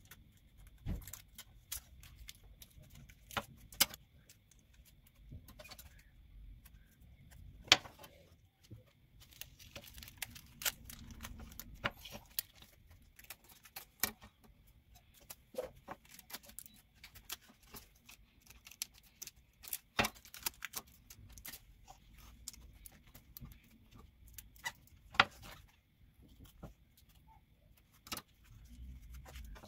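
Small scissors snipping and clicking as they trim around a cracked wooden handsaw handle: irregular sharp clicks, a few much louder than the rest, over a faint steady high hum.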